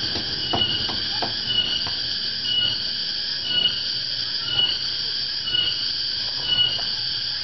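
Tonggeret cicadas (garengpung) calling loudly: a shrill, steady drone with a higher note that swells about once a second. In Java this call is usually taken as a sign that the dry season is coming.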